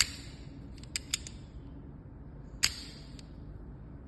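Metal clicks from a D11 fingerprint padlock being opened and handled: a sharp click at the start, a few light ticks about a second in, and another sharp click with a short ring about two and a half seconds in.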